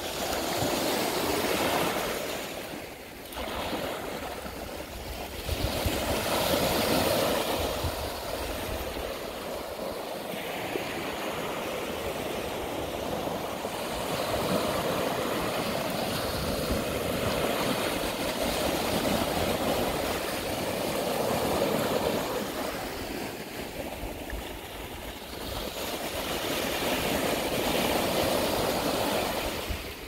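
Ocean waves breaking and washing up on a beach: a steady surf hiss that swells and eases every few seconds.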